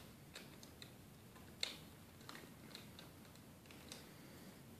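Faint, scattered clicks of small plastic toy pieces being handled and knocked together, about eight light ticks with one a little louder about a second and a half in, over near silence.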